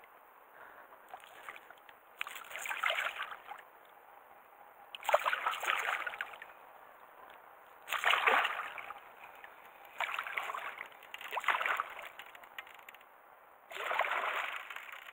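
A large hooked carp thrashing at the water's surface as it is played in, splashing in about five bursts a few seconds apart.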